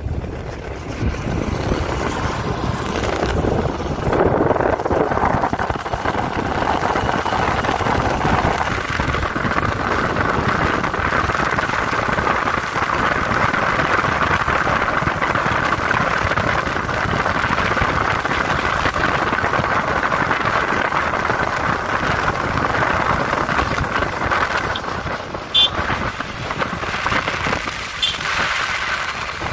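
Wind rushing over the microphone, mixed with engine and tyre noise, from a ride on a moving motorbike. About 25 seconds in there is a brief sharp knock.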